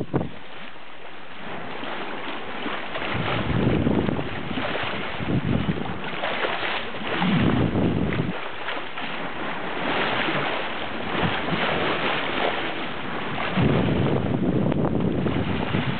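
Wind buffeting the microphone in several heavy gusts over a steady rush of wind and water.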